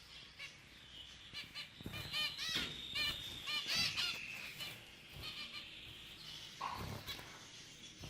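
Zebra finches calling: a run of short, nasal, honking calls repeated quickly, loudest in the middle, with one lower call near the end.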